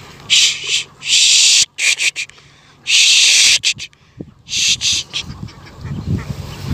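A person making loud hissing "shh" sounds four times in short bursts; near the end, ducks begin quacking.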